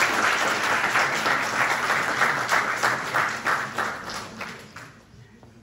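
Audience applause, many hands clapping, thinning out and dying away about four to five seconds in.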